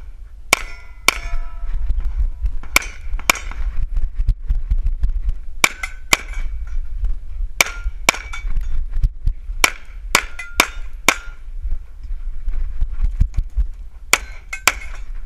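Pistol shots fired in quick pairs, about half a second apart, during a timed action-pistol stage, with a pause of one to three seconds between pairs. There are about fifteen shots in all.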